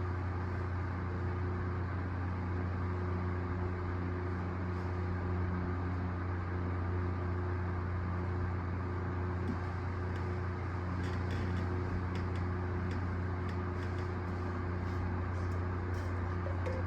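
A steady low mechanical hum at an even level, with faint light ticks scattered through the second half.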